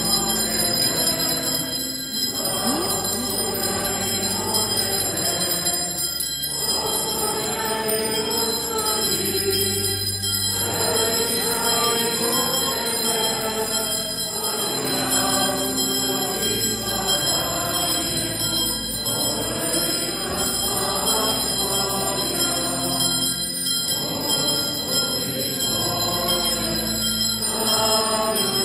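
Choir of men singing a slow liturgical chant in a large church, in phrases a few seconds long with short breaks between.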